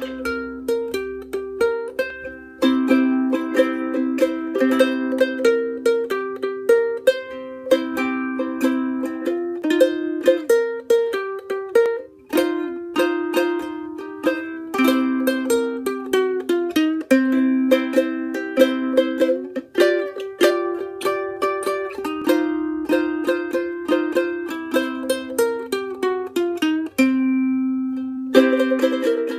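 Music: a brisk plucked-string tune, notes picked several to the second, with a held note and a brief pause near the end before it starts again.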